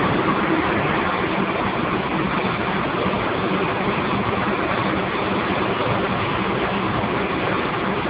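Steam boiler plant running with a loud, steady noise and a faint low hum underneath.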